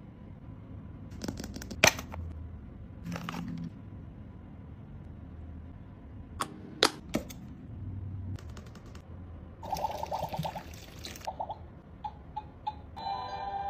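Clicks, snaps and rustling of toy packaging being handled, with a sharp snap about two seconds in and a burst of rustling about ten seconds in. Music starts near the end.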